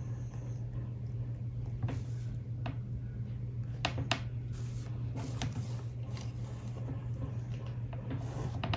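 Ballpoint pen drawing along a plastic ruler on notebook paper, with a few short light clicks as the ruler and pen are handled, over a steady low hum.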